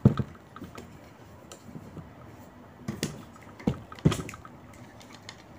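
A camera tripod being handled and set up, its legs and fittings clicking and knocking, with the sharpest knocks about three and four seconds in.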